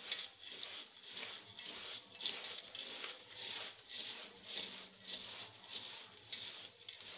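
Puffed rice being stirred and turned with a spatula in a large steel bowl while jaggery syrup is mixed in. Each stroke gives a dry, rhythmic rustle and crunch, about two strokes a second.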